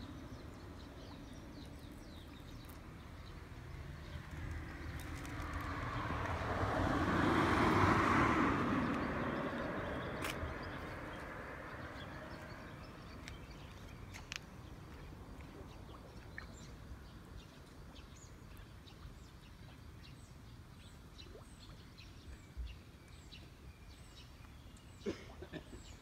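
A road vehicle passing by, swelling to a peak about eight seconds in and then fading away. Small birds chirp faintly now and then afterwards.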